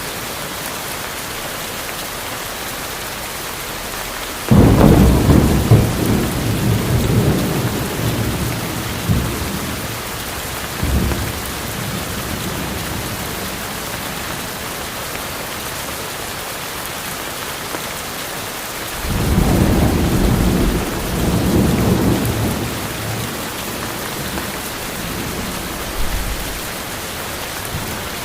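Steady rain in a tropical forest, with two rolls of thunder. The first breaks in suddenly about four seconds in and rumbles on for several seconds with smaller after-rumbles. The second swells up about twenty seconds in and dies away over a few seconds.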